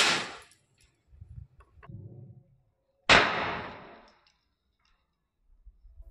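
Two sharp bangs from homemade matchstick firecrackers, match heads wrapped tight in thread, about three seconds apart, each trailing off briefly.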